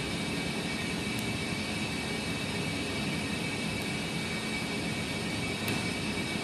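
Steady whooshing machine noise with a thin high whine, like a running fan, under a few faint clicks from a pick working the pins of a padlock.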